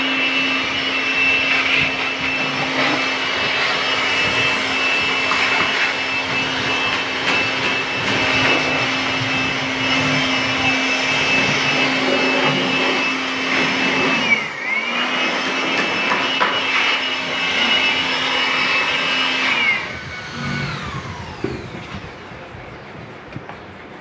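Handheld electric air blower running steadily, a high whine over rushing air, as it blows dust out of a wooden cabinet. Its pitch dips briefly and recovers about fourteen seconds in. Near the end it is switched off and winds down with a falling whine.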